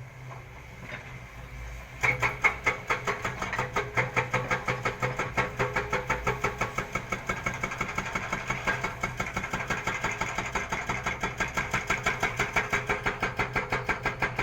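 Kobelco excavator: a low steady hum, then about two seconds in a sudden loud, rapid rhythmic clatter of about four to five beats a second that keeps going evenly.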